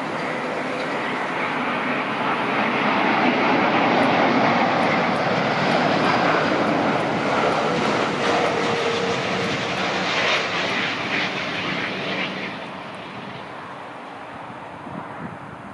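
Heavy jet airliner passing close on landing approach: engine noise swells over the first few seconds, holds, then falls away about twelve seconds in.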